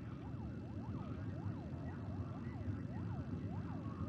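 A warbling, siren-like electronic tone that sweeps down and back up over and over, a few times a second, over a steady low rumble, with a faint steady high whine.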